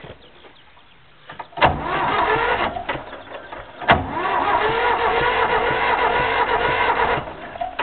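McCormick Farmall tractor being cranked: a clack about a second and a half in and a short burst of cranking, then a second clack near four seconds and a longer spell whose pitch rises and settles before it stops suddenly.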